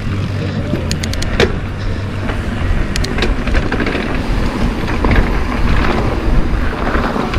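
Mountain bike riding fast down a dirt singletrack: steady wind and tyre noise on the bike-mounted microphone, with a few sharp clicks and rattles from the bike about a second in and again around three seconds in.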